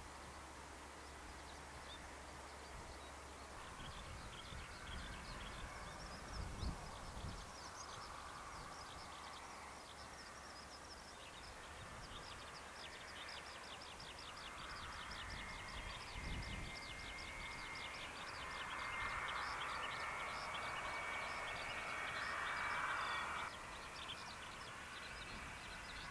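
Faint, distant whine of a Cessna 525 CitationJet's twin turbofans on the runway, with a steady thin high tone that swells and cuts off suddenly near the end. Rapid, repeated chirping calls run through the background, with a couple of low thumps from wind on the microphone.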